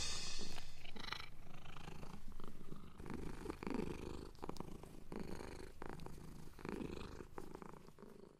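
Orange tabby cat purring steadily and faintly, in a slow rhythm of swells with each breath, fading near the end.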